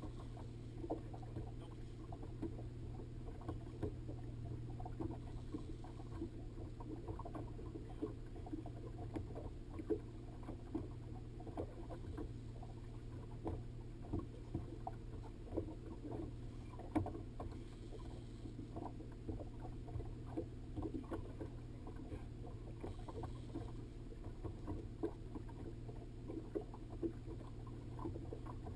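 Small waves slapping and knocking irregularly against the hull of a fishing boat, over a steady low hum.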